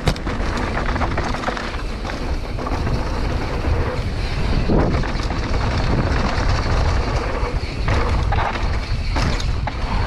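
Wind buffeting an action camera's microphone while a Scott Gambler 710 downhill mountain bike rolls fast over a dirt forest trail. Tyre noise and scattered knocks and rattles from the bumps run under it, at a steady loud level.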